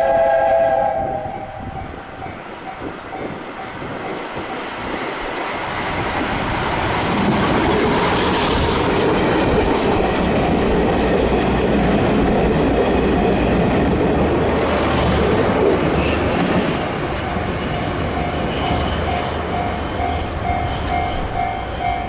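SL Hitoyoshi steam locomotive (JNR Class 8620) train: its whistle cuts off about a second in. The train's running noise then grows louder and stays loud through the middle, wheels clattering over the rail joints. A steady, pulsing tone comes in near the end.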